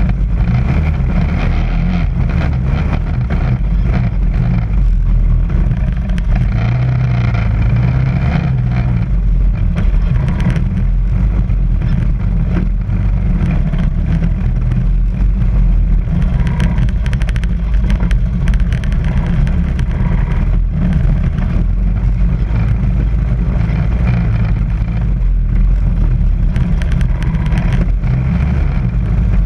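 ATV engine running steadily as the quad rides over bare slickrock, with a constant heavy low rumble.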